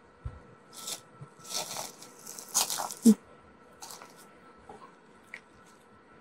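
Several short crunching, rustling noises, the loudest a sharp one about three seconds in, over a faint steady high tone.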